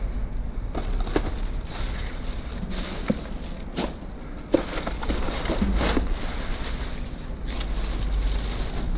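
Plastic bags and snack packaging rustling and knocking as items are handled and sorted, a series of short crinkles and clicks, over a steady low rumble.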